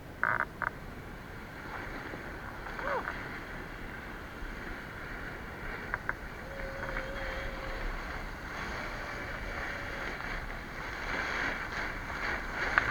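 Sandboard sliding down loose volcanic gravel: a steady rushing, scraping hiss that grows louder toward the end, with a few short clicks near the start.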